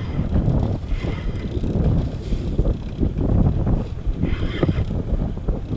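Wind buffeting the microphone on an open boat at sea: a loud, uneven low rumble.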